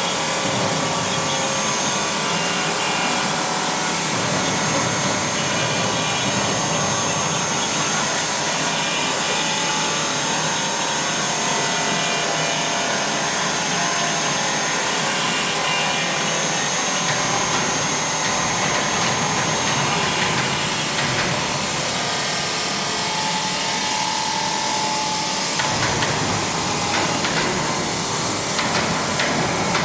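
Mini CNC router with a rotary axis engraving olive: the spindle runs with a steady high whine over the cutting noise. A few seconds before the end the sound shifts, with a deeper hum and some clicks.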